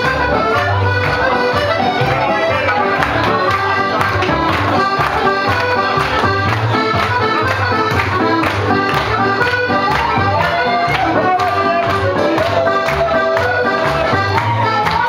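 Live ceilidh band playing a Scottish dance tune, led by a piano accordion, with a steady dance beat.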